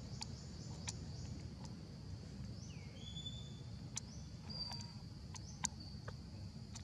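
Outdoor nature ambience: a steady high insect drone and several short whistled bird calls that slide up and down in pitch, over a low rumble. A few sharp clicks, one about two-thirds through, are the loudest moments.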